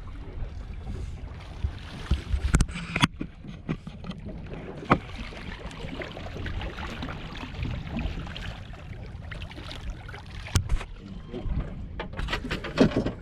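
Wind rumbling on the microphone and water against a small boat's hull, with occasional sharp knocks and clicks from handling on board: one about two and a half seconds in, one about five seconds in, one about ten and a half seconds in, and a cluster near the end.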